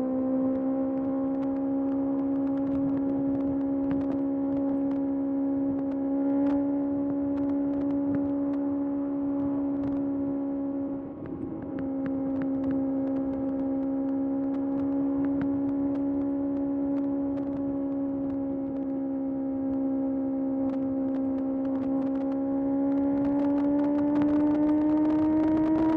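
Kawasaki ZX6R's 636 cc inline-four engine running at steady revs under way. It dips briefly about eleven seconds in, then rises in pitch near the end as the bike accelerates.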